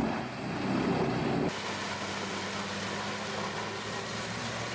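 Heavy machinery running. About a second and a half in, the sound cuts abruptly from a louder, rumbling machine noise to a steadier, quieter engine drone with a faint high whine.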